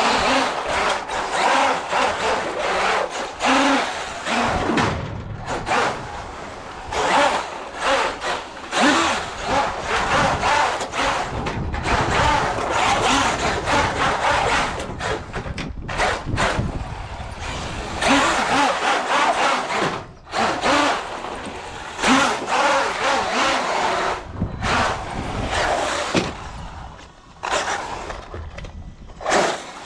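Electric RC desert truck (Traxxas UDR) driving across a wooden plank deck: motor and tyres on the boards in uneven bursts, starting and stopping repeatedly as the throttle comes on and off.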